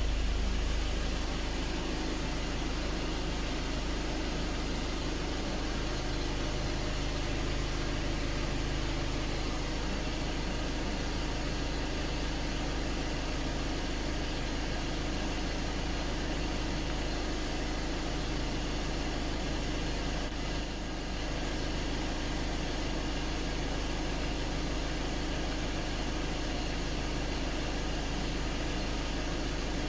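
A car's engine running, a steady low rumble with noise over it that holds level, dipping briefly about two-thirds of the way through.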